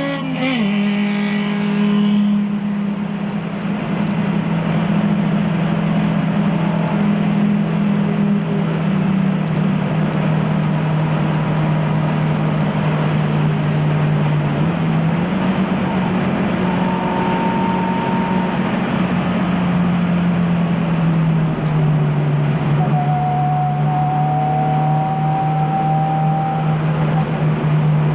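1971 Alfa Romeo Giulia's twin-cam four-cylinder heard from inside the race car on the track. The engine note drops sharply right at the start as the driver lifts or changes gear, then holds at steady high revs for a long run with only small shifts in pitch, over a hiss of tyre and road noise.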